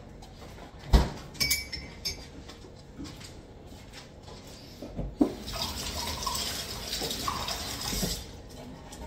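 Kitchen clatter: a knock and a few ringing clinks like glass or crockery about a second in, then water running steadily for about three seconds.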